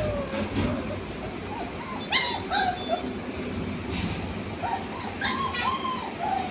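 Rottweiler puppies whimpering and yipping in a string of short, high-pitched calls, some sliding down in pitch, sharpest about two seconds in and again around five seconds.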